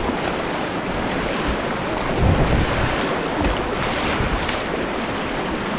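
Rushing whitewater of a river rapid, a steady loud wash of water noise, with low buffeting on the microphone a couple of seconds in.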